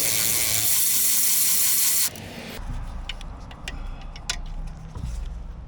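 Cordless electric ratchet running with a wavering whine, cutting off about two seconds in, followed by a few light metallic clicks of tools on the engine's fasteners.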